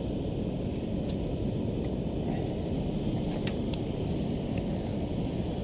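Steady low rushing noise with a few faint, light clicks about two and three and a half seconds in.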